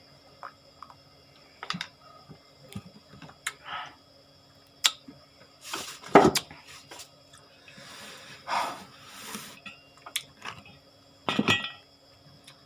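Dishes and food being handled on a table: scattered light clicks and knocks, with a few louder short scraping or rustling bursts around the middle and near the end.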